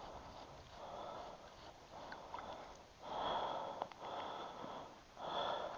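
Footsteps crunching in snow, a slow walking rhythm of about one step a second, the steps about three seconds in and near the end the loudest.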